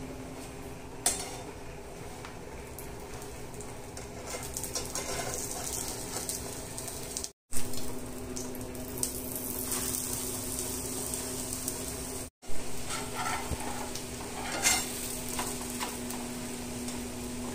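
An egg omelette sizzling in oil in a nonstick frying pan on a gas burner, with a metal spatula scraping and knocking against the pan now and then as the omelette is worked and lifted. The sound cuts out completely twice for a moment.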